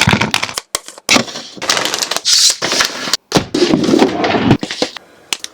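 Rapid clicks, knocks and rustling of containers and packaging being handled, in short pieces that cut off abruptly.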